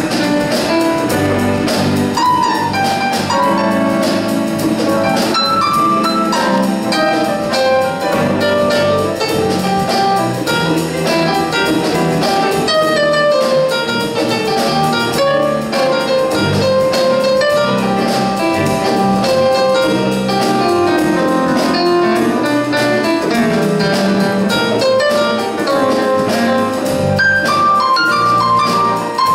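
A jazz ensemble playing live, with a keyboard solo on a Yamaha digital stage piano, a fast run of single notes, over electric bass and drums.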